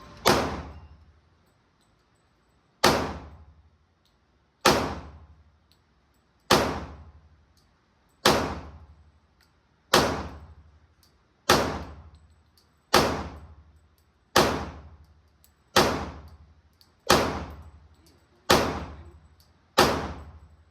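Pistol fired slowly in single shots: thirteen sharp reports, each trailing off, with the gap narrowing from about two and a half seconds to about one and a half.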